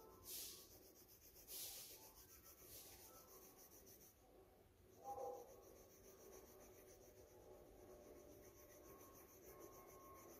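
Faint pencil scratching on paper as a drawing is shaded, with a few distinct strokes in the first three seconds and softer steady scratching after. A brief pitched sound about five seconds in.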